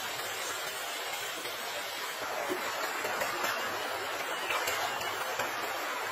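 Stream water running steadily, with small splashes and ticks becoming more frequent from about a third of the way in.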